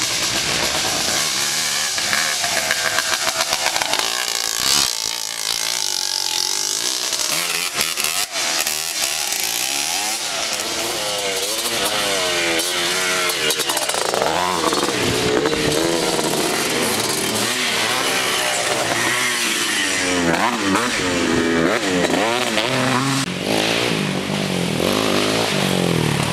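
Engines of 250cc racing quads revving as they pass along a dirt track. The pitch rises and falls again and again with throttle and gear changes.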